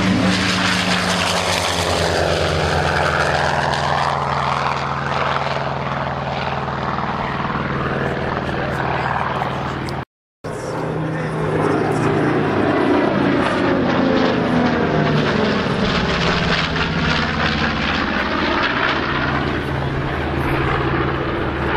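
F4U-4 Corsair's Pratt & Whitney R-2800 radial engine at takeoff power as the fighter lifts off, a steady propeller drone. After a brief cut about halfway through, the piston engines of a three-plane warbird formation (P-38L Lightning, B-25 Mitchell and Corsair) droning as they fly past, the pitch sweeping slowly as they pass.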